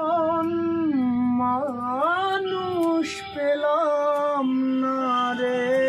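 A man singing solo and unaccompanied, the slow opening of a Bengali song: long held notes that bend and turn in pitch, with a brief pause for breath about halfway.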